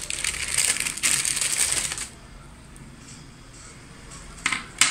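Clear plastic bag crinkling and rustling as it is handled for about two seconds, then quieter, with two sharp clicks near the end.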